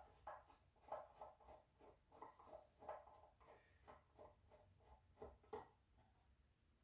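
Faint, irregular clicks and light taps of small metal parts of a panic exit device being handled, several a second, dying away about six seconds in.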